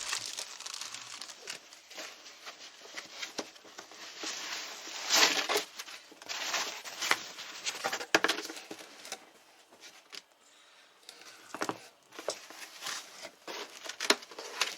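Packaging being opened and handled: irregular rustling, crinkling and tearing with scattered clicks and knocks.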